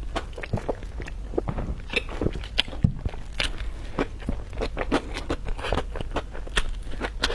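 Close-miked eating: a person biting into and chewing crunchy food, with rapid crisp crunches and crackles.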